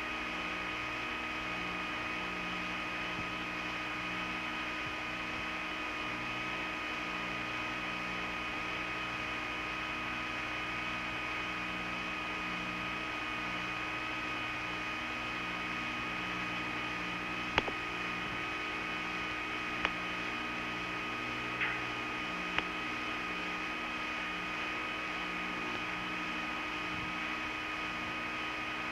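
Steady hum of Skylab's cabin fans and onboard equipment: a level drone made of several fixed tones over a hiss. A few sharp clicks come in the second half.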